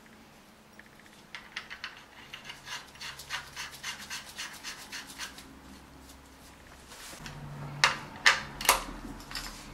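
Ratchet wrench clicking in quick regular runs, about four or five clicks a second, as a VANOS plug is run down on a BMW M52 engine. Near the end come three louder, sharper clicks.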